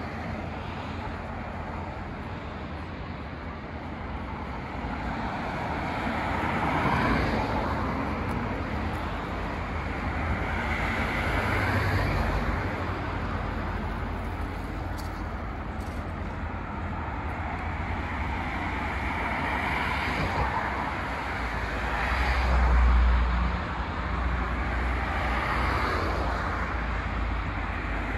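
City road traffic: vehicles passing one after another, each swelling and fading, with a heavier, deeper one going by near the end.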